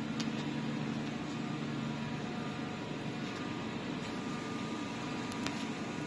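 Steady hum of running PET bottle flake washing-line machinery, with a couple of short sharp ticks.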